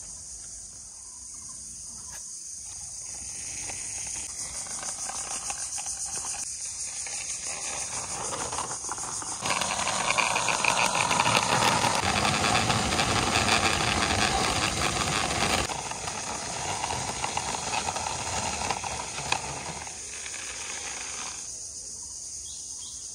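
Steady high chirring of crickets throughout. From about a third of the way in, a louder rough rolling noise, a toy off-roader's plastic wheels pushed along the concrete top of a wall, which cuts off suddenly about six seconds later.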